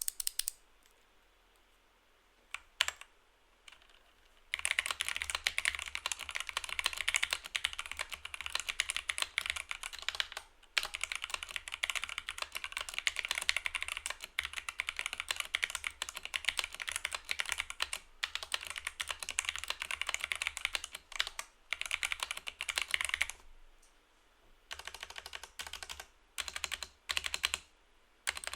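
Typing on a Zifriend budget 65% mechanical keyboard. A couple of single key presses come first, then about twenty seconds of fast continuous typing, and then slower, separate keystrokes near the end.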